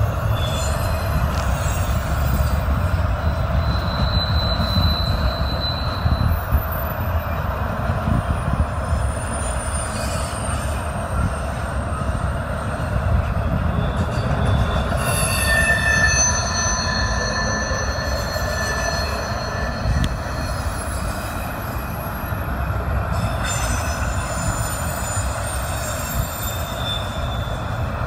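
Intermodal freight train's double-stack container and trailer cars rolling past at close range: a steady rumble of steel wheels on rail, with thin high squeals from the wheels coming and going, clearest about four seconds in and again in the middle.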